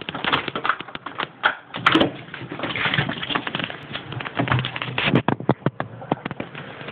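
A rapid, irregular clatter of clicks and knocks as a back door is opened and two small dogs scramble out through it across the hard floor and patio. It thins out about six seconds in, leaving a quieter steady outdoor hiss.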